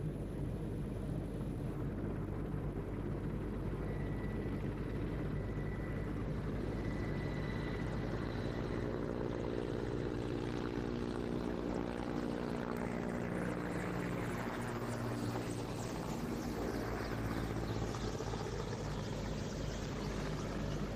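Military transport helicopter's rotors and turbine engines running steadily through lift-off, climb and a pass overhead. The low rotor beat comes through more distinctly in the second half.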